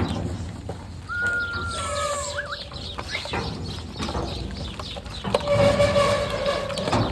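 A flock of horned sheep milling and shuffling in a tight crowd, with animal calls rising over the shuffle. A long smooth whistle sounds about a second in, and a strong held call comes near the end.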